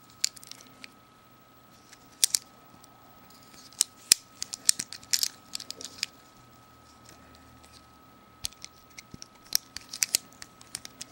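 Sharp metallic clicks and snaps of a Leatherman Crunch multitool being handled, its blades and tools folded shut and clicking into place, coming irregularly in small clusters.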